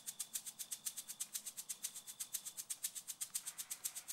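A dry, high-pitched rattling pulse repeating very evenly, about eight beats a second, with a faint thin steady tone behind it for the first couple of seconds.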